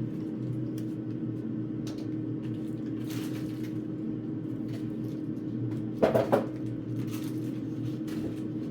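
Food packages and containers being handled while a fridge is emptied: scattered rustles and light knocks over a steady low hum, with a louder clatter about six seconds in.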